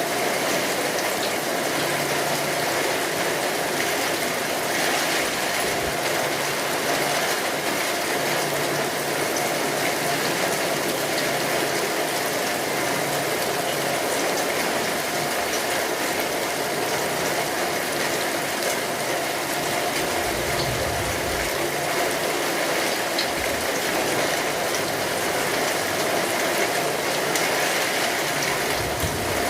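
Steady, continuous rainfall, an even hiss of falling drops, with a few brief low rumbles now and then.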